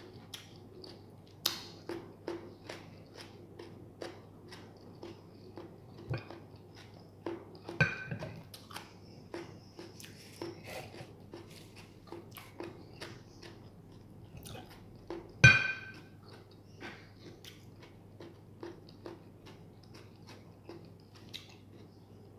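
A person chewing close to the microphone: small mouth clicks every fraction of a second. A mug clinks sharply against a plate about fifteen seconds in, the loudest sound, with a lighter clink about eight seconds in.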